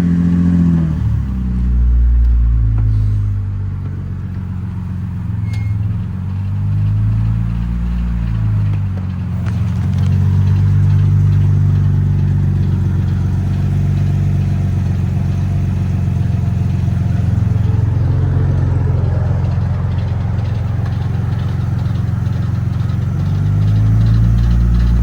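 BMW E90's engine running, the revs rising and falling a few times and holding steady in between.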